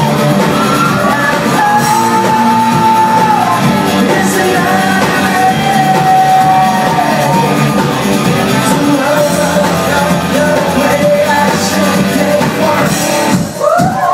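A live rock band plays with a male lead singer holding long sustained notes, heard from within the concert audience. Near the end the sound dips briefly, then swells again with a rising note.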